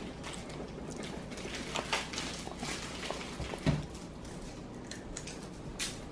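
Quiet table-side eating noises: scattered small clicks and crackles, with one sharper tap about three and a half seconds in.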